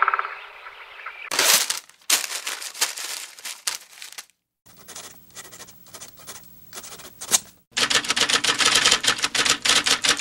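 Rapid, dense clattering clicks in three stretches that start and stop abruptly, the last stretch the loudest.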